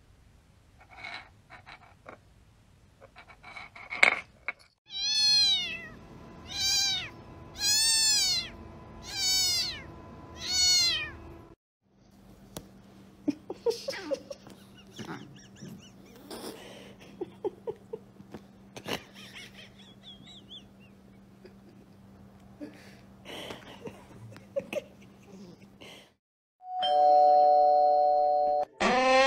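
A cat meows five times in a row, about one call every second and a half, each call rising and then falling in pitch. Scattered clicks and knocks come before the calls. Near the end a loud steady tone starts suddenly.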